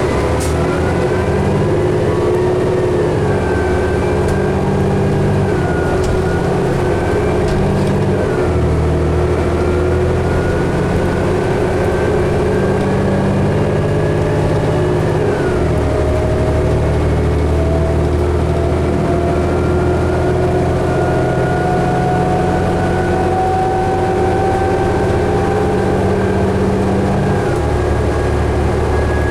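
Inside a 2011 New Flyer D60LFR articulated diesel bus under way: steady engine and drivetrain rumble with whining tones that rise and fall with road speed, one climbing slowly through the second half.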